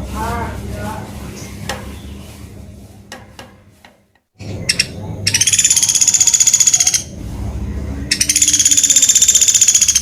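Pelatuk beras (common flameback woodpecker) giving rapid rattling trills, two of them about two seconds each, around five and eight seconds in. Softer, lower calls come in the first second, over a steady low hum, and the sound drops out briefly just past four seconds.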